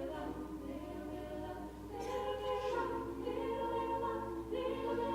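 A cappella vocal group singing held, wordless chords, moving to a new chord about two seconds in and again near the end.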